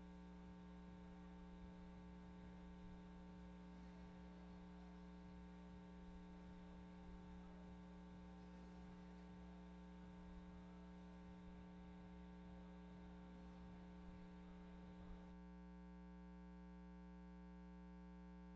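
Near silence with a steady electrical mains hum. The faint background hiss under it drops out about fifteen seconds in, leaving only the hum.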